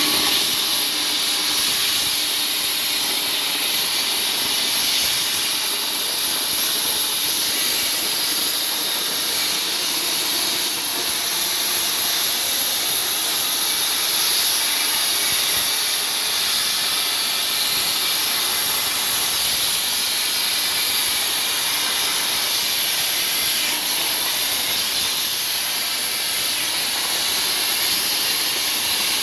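CNC plasma torch cutting 2 mm sheet steel: a loud, steady, high hiss from the arc and its air jet.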